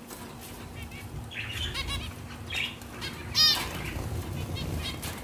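A flock of caged zebra finches giving short calls, the loudest about three and a half seconds in, with wings flapping as birds flutter about the cage.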